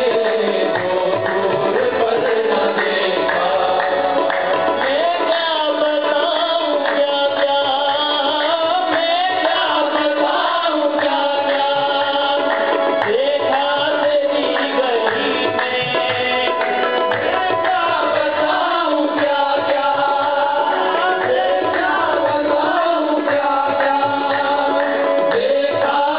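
Devotional naat singing: a sung Urdu melody with percussion accompaniment, running on without a break.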